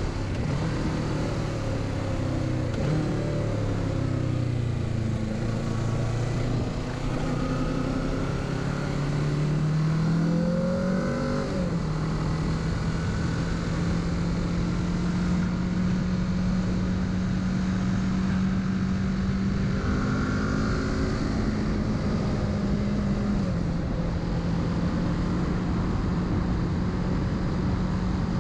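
Kawasaki Z650's parallel-twin engine under way. Its note falls, then climbs for several seconds and drops back about twelve seconds in, before holding a steady pitch for most of the rest, over a constant rush of wind.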